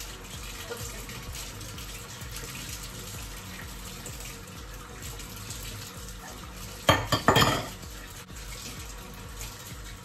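Kitchen faucet running steadily into a sink while dishes are washed by hand, with a brief loud clatter of dishes knocking together about seven seconds in.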